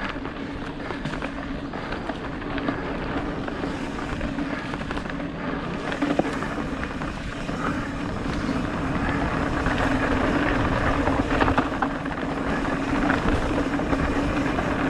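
Mountain bike rolling fast down dirt singletrack: steady tyre noise with a hum, wind rushing over the camera microphone, and a few sharp knocks as the bike hits bumps, louder from about the middle on.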